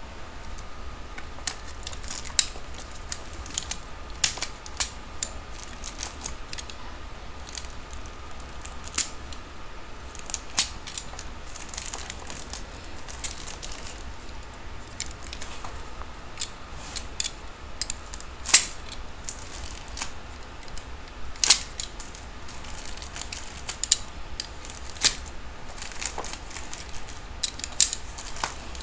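A utility knife cutting and pulling away the clear plastic film wrapped around a headset's headband: irregular sharp crackles and clicks of plastic, over a low steady hum.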